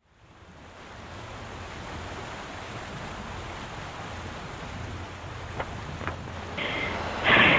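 Steady wind and water ambience, fading in over the first couple of seconds. A couple of faint clicks follow, then a brief louder sound near the end.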